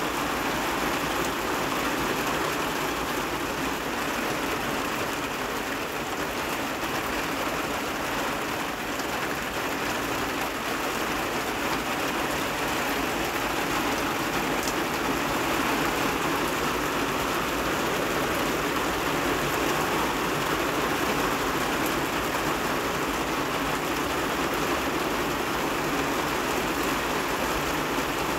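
Heavy rain pouring steadily onto a flat rooftop, a dense, even hiss of drops splashing on the wet surface.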